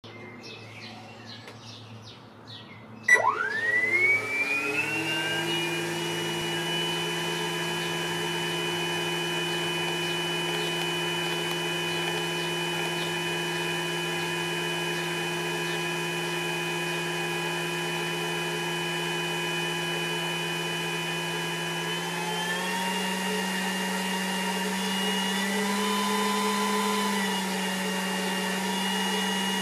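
Electric ducted fan of a Multiplex Twister RC jet starting up about three seconds in, its whine rising fast and settling into a steady high-pitched whine with several tones. A little after twenty seconds it steps up slightly in pitch, twice, as the throttle is raised.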